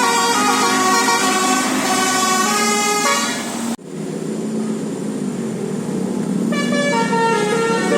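A bus's basuri telolet horn playing a tune in quick stepped notes. The horn cuts off abruptly about four seconds in, a lower, quieter tone carries on, and the tune starts again near the end.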